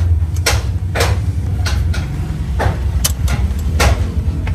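A hand wrench ratcheting on a steel compressor mounting bolt, a sharp stroke roughly every half second to second as the bolt is loosened. A steady low engine-like hum runs underneath.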